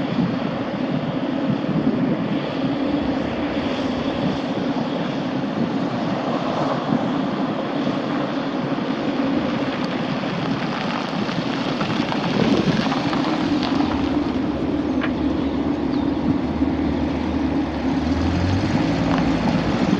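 1984 Dodge D150 pickup's 3.7-litre slant-six gas engine running steadily, its note rising in steps near the end.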